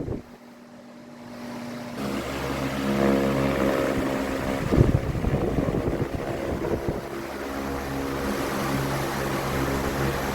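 Delta Premium 60 cm wall fan running: after a sudden drop just at the start, the motor hum and the rush of air from the blades build up over about two seconds, then hold steady. A brief low thump comes about five seconds in.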